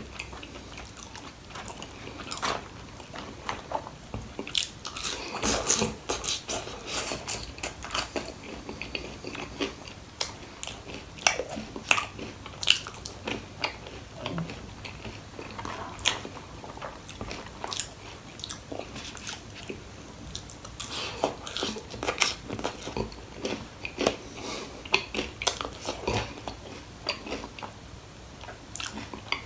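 A person chewing and biting crisp fried food close to the microphone, with irregular sharp crunches throughout.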